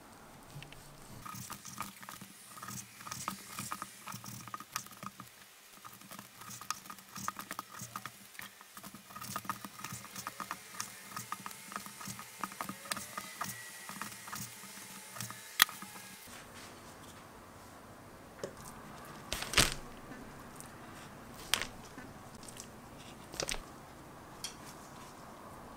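Kitchen knife cutting raw chicken breast on a plastic cutting board: many quick, light taps of the blade on the board, with soft squishing of the meat. After an abrupt change about two-thirds through, a few separate sharp clicks.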